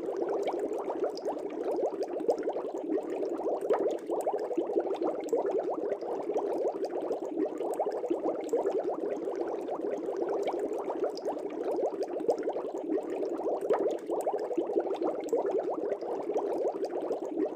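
Aquarium air bubbles rising and bubbling steadily in the water, a dense continuous stream of small gurgling pops.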